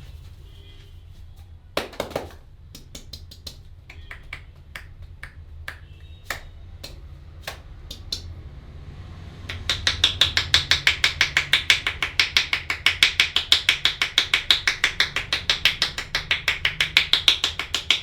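Hands slapping and tapping on a head in an Indian head massage: a few scattered light taps and clicks at first, then from about halfway a fast, even run of slaps, about five a second. A low steady hum runs underneath.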